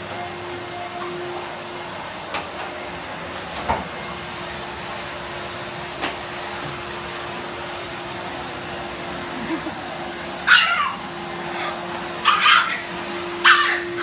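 Numatic Hetty cylinder vacuum cleaner running with a steady hum. Over it, a pug puppy gives three short, high-pitched yaps in the last few seconds.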